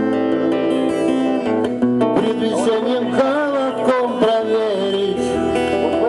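Live acoustic guitar song amplified through stage speakers: steady strummed guitar chords, with a wavering melody line rising over them about two seconds in.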